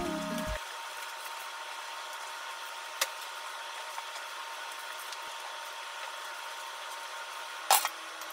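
Background music stops within the first second, leaving a steady faint hiss of kitchen room tone with a single soft click about three seconds in. Near the end comes one sharp metallic clink: chopsticks knocking against a stainless steel mixing bowl.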